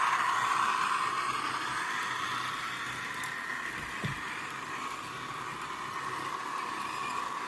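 OO gauge model locomotive running on the layout: a steady whirring hum that slowly fades, with a soft knock about four seconds in.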